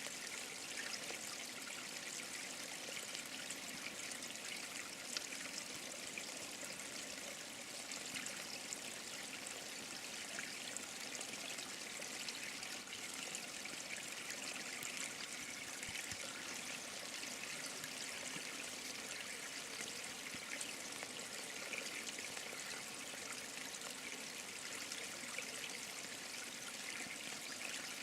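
Mountain stream running steadily over rocks, an even rushing hiss of water with a few faint splashes.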